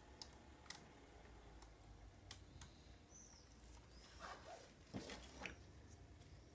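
Faint clicks and light rattles of plastic Lego pieces being handled and pressed together, a handful of separate ticks with a small cluster past the middle, over a quiet room.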